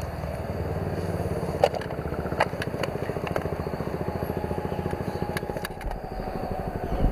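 Harley-Davidson FXR's V-twin engine idling with a steady pulsing beat, with a few light clicks over it.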